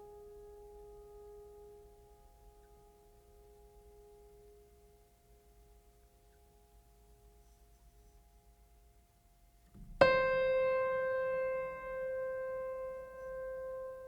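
A sustained ringing musical note slowly fades away. About ten seconds in, a single new note is struck sharply and rings out with many clear overtones, decaying slowly.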